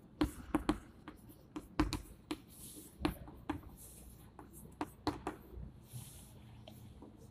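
Chalk writing on a blackboard: a string of irregular sharp taps as the chalk strikes the board, with short scratchy strokes between them.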